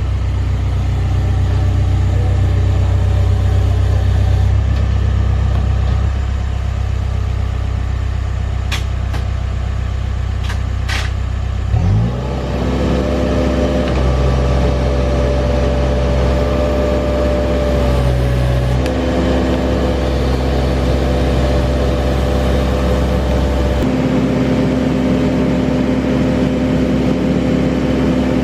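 Case 580 Super N backhoe loader's diesel engine running at a low steady hum, then about twelve seconds in it revs up with a rising pitch and holds a higher, steady note with a whine.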